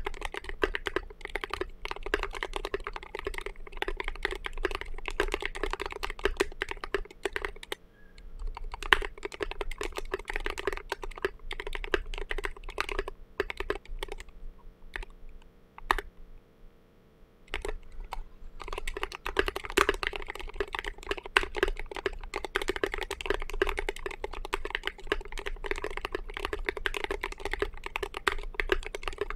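Typing on an RM.6 mechanical keyboard fitted with Thic Thock Marshmallow linear switches and SP SA-P Snow Cap SA-profile keycaps: rapid keystrokes, a stretch of slower separate presses in the middle, a brief pause, then fast typing again.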